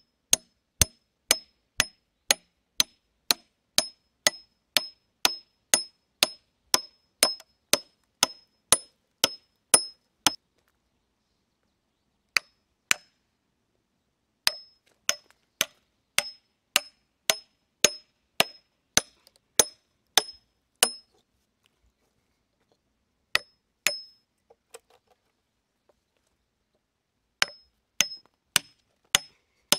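Hatchet blows on wood, about two a second, each a sharp knock with a short metallic ring, in runs broken by brief pauses.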